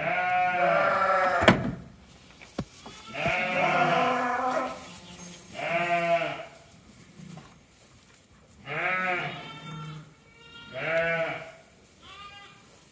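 Ewe and lambs bleating in a straw pen: about six separate bleats, the first two long, the later ones shorter, the last one higher. One sharp wooden knock about a second and a half in, as the wooden head-gate panel is handled.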